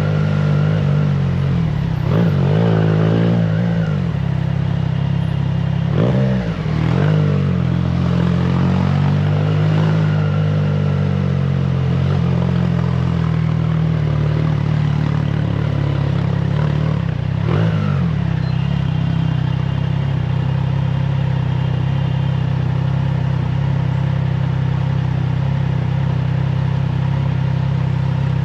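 Triumph Trident 660's inline three-cylinder engine through a FireTong aftermarket exhaust, running under load at steady revs. The revs dip briefly and climb back three times: at about two to four seconds, about six seconds, and about seventeen seconds in.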